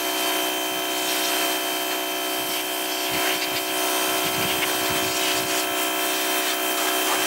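Pressure washer running, its jet spraying water onto a metal suspension strut leg to blast off paint-stripper-softened grime: a steady hiss of spray over a steady machine hum.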